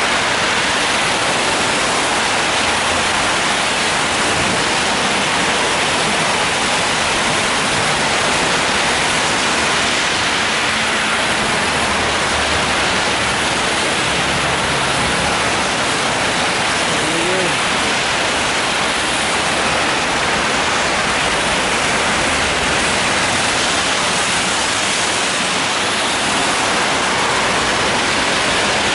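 Steady heavy rain falling on an umbrella held overhead, mixed with the hiss of car tyres on a wet road.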